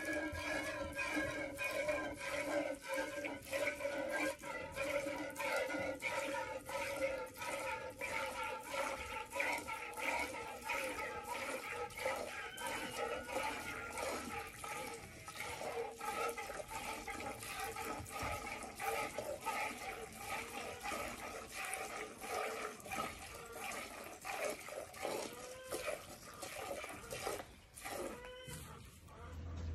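A cow being milked by hand: squirts of milk hitting a pail in an even rhythm of about two a second, over a steady ringing tone that slowly sinks in pitch as the milk collects. The squirts fade near the end.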